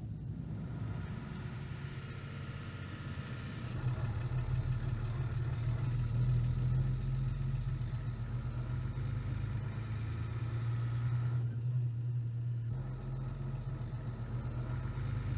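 An engine running steadily at idle, a low drone that gets louder about four seconds in.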